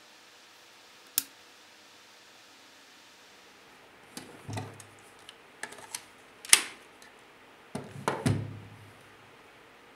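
A single sharp click, then a run of plastic knocks, clatters and low thuds as a cordless drill and its battery pack are handled on a wooden table, the battery pack snapping into the drill's handle.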